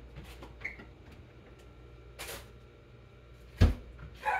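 Freezer door shutting with a single hard thump about three and a half seconds in, after a few soft clicks and knocks of handling. A dog's bark starts right at the end.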